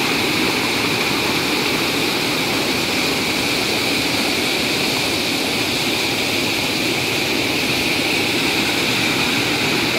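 Fast, churning floodwater rushing over rocks in a rapid, a loud steady roar of whitewater.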